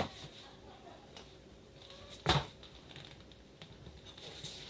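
Handling noise as small engines are moved by hand on a wooden floor: a sharp click at the start, one solid knock a little over two seconds in, and light scraping and shuffling in between.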